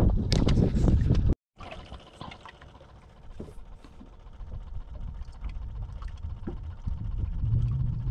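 Small waves lapping and trickling against the hull of a small fishing boat, with scattered light ticks and knocks. It opens with a loud low rumble on the microphone that cuts off abruptly after about a second and a half.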